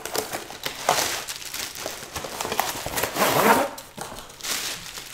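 Packaging and a nylon carrying bag being handled as light stands are unpacked: irregular knocks, clicks and rustling. The loudest rustle and scrape comes about three and a half seconds in.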